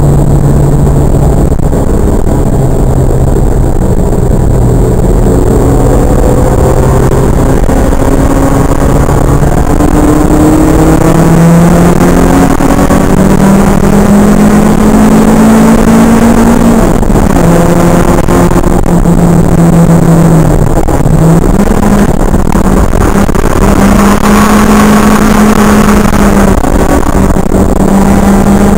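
Toyota AE86's stock 4A-GE twin-cam four-cylinder engine heard from inside the cabin under hard driving, its note climbing and falling as it is revved through the corners, with a sharp dip and recovery about two-thirds of the way in. The recording is loud and distorted.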